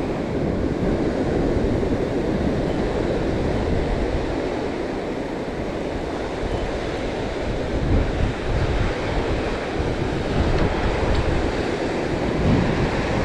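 Surf washing up the beach in small breaking waves, with wind buffeting the microphone.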